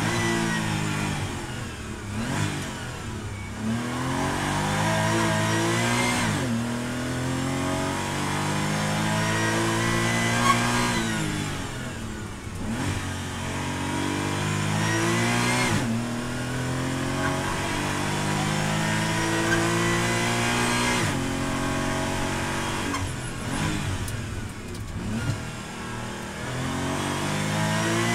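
Porsche GT4 race car's flat-six engine heard from inside the cockpit, repeatedly accelerating hard, its pitch climbing through the gears and breaking at each shift. It falls away several times as the car lifts and brakes for tight hairpin turns, then pulls away again.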